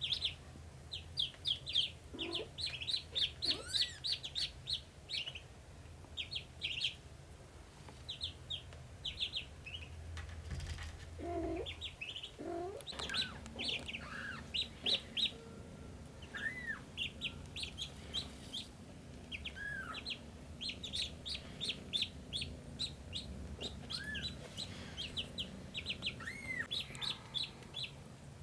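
Ducklings peeping: rapid runs of short, high peeps that come in bursts, with a few separate rising-and-falling calls between them.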